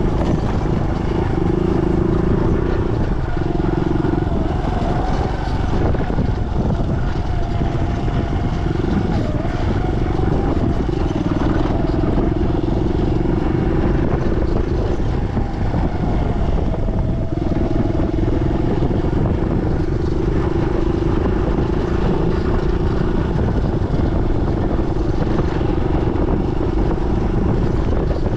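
Trail motorcycle engine running while riding a dirt track, its note holding steady for a few seconds at a time, then easing off and picking up again with the throttle, over a steady low rumble.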